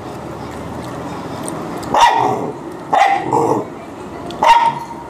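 A dog barking three times, at about two, three and four and a half seconds in, each bark sliding down in pitch.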